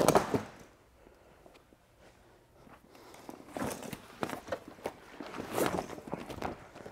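Handling noise from a fabric rooftop-tent cover being thrown over and pulled into place on the tent: a brief knock at the start, then after a quiet couple of seconds, irregular rustling and shuffling steps.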